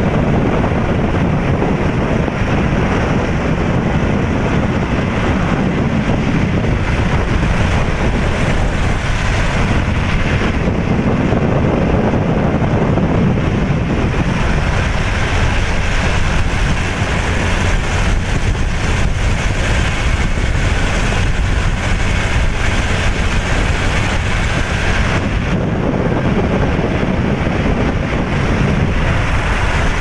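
Steady wind noise buffeting the microphone over the road noise of a moving vehicle.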